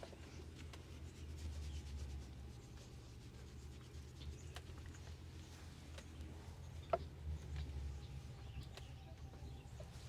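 Hands rubbing over hair and scalp in a head massage, a soft, steady friction with a low rumble that swells and fades. There is a single sharper click about seven seconds in.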